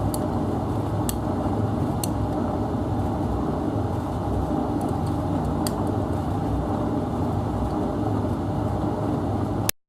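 Domestic laundry machines running, a steady drum rumble with a few sharp clicks, the first three about a second apart; the sound cuts off abruptly near the end.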